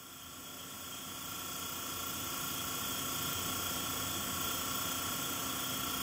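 Steady hissing noise with a few faint steady tones underneath, swelling gradually louder from silence over the first few seconds and then holding.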